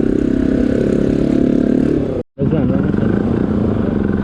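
Motorcycle engine running under way, a steady pulsing drone with some voices mixed in; the sound breaks off for an instant about two seconds in at an edit.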